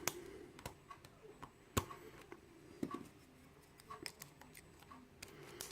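Faint, irregular small clicks and light scraping of a hook pick and tension wrench working the pin stacks inside a Yale euro cylinder lock, with one sharper click a little under two seconds in.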